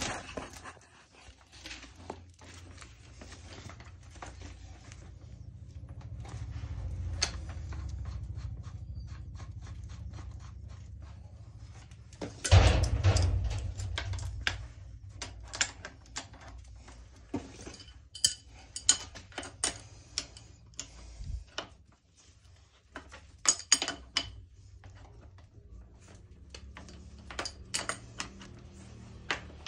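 Irregular metallic clicks, taps and clinks of spanners working the flare nuts on air-conditioner copper pipes as the joints are fitted and tightened, some with a short ringing. There is a louder knock about twelve seconds in, over low handling rumble.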